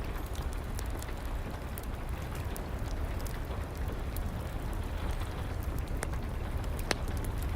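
Steady rain together with a crackling wood fire: an even hiss with a low rumble, dotted with sharp crackles and pops, two louder pops about six and seven seconds in.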